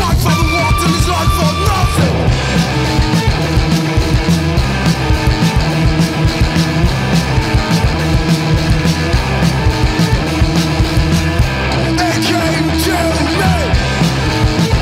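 Rock music track with a steady drum beat and bass.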